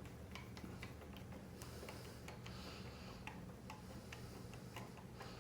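Light, irregular clicks and taps of small metal skateboard-truck hardware being handled while the truck is fitted to a surf adapter, over a steady low hum.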